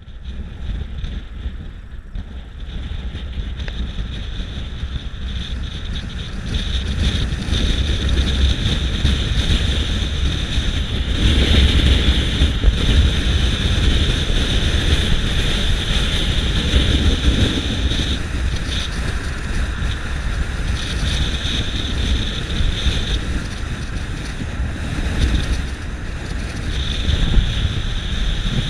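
Strong wind buffeting the microphone: a deep, uneven rumble with steady hiss above it, growing louder over the first several seconds.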